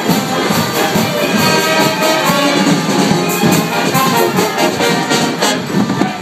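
Street brass band playing: trombone and other brass carry the tune over a steady bass drum beat.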